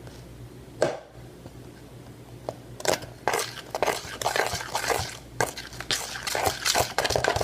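Foamy shaving-cream and glue slime being stirred and squished in a bowl: irregular wet, crackly squelches that start about three seconds in and keep going.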